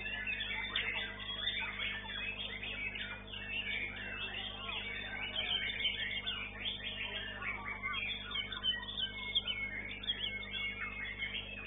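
White-rumped shama (murai batu) song: a fast, dense stream of varied whistles, chirps and trills with hardly a pause, over a steady low electrical hum.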